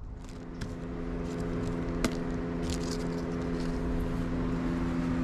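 A machine running steadily with a constant, even hum, with a few light clicks and clatters of handling over it, including a sharper click about two seconds in.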